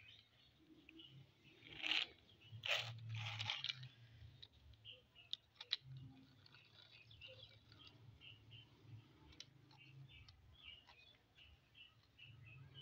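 Small plastic toy cars pushed by hand across a gritty concrete floor: three louder scraping rasps about two to four seconds in, then a few sharp plastic clicks as the cars knock together, under faint high chirps.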